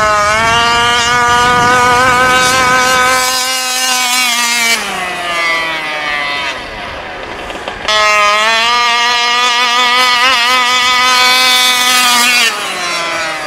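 Taylor 46 GT two-stroke gas engine in a 30 Degree North RC truck running at full throttle in two long bursts, each held at a steady high pitch for about four to five seconds. After each burst it backs off, its pitch falling; the second burst comes in suddenly about eight seconds in.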